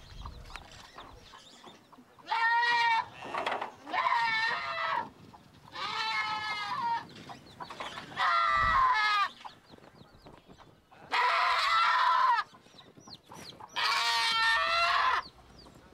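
A goat bleating six times, each call about a second long with a wavering pitch.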